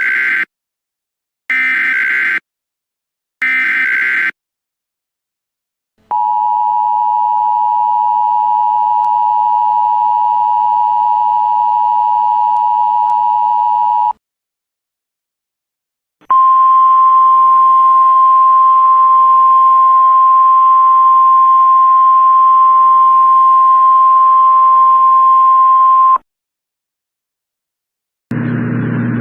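Emergency Alert System warning signals. Three short screeching bursts of digital header data come about two seconds apart, then a steady two-tone attention signal sounds for about eight seconds. After a short pause, a single steady alert tone sounds for about ten seconds, the weather radio warning alarm tone.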